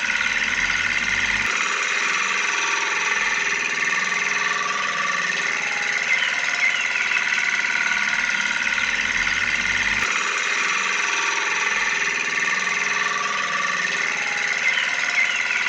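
Small electric motor of a DIY mini tractor running steadily with a whirring, engine-like hum; the low part of the sound shifts about a second and a half in and again near ten seconds.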